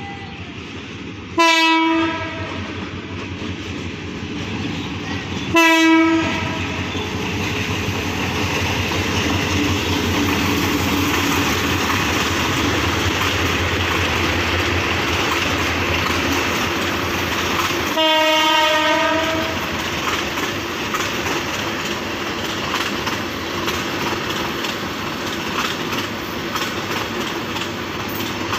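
Diesel locomotive horn sounding two short, loud blasts early on and a longer blast about eighteen seconds in, over the steady rumble of a long passenger train rolling past, its wheels clicking over the rail joints.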